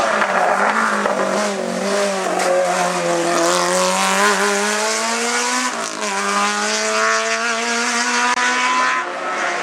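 Race car engine at full throttle, its pitch climbing steadily as it pulls through a gear. There is a quick drop for an upshift about six seconds in, then another climb and a second shift near the end.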